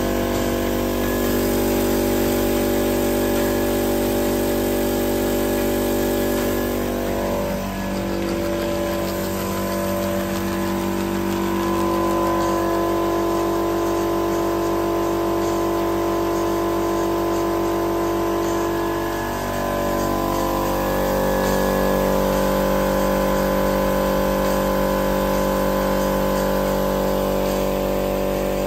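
Marel Compact Grader running, its conveyor and drive motor giving a steady mechanical hum of several held tones. The tones slide to a new pitch about seven seconds in and again around twenty seconds.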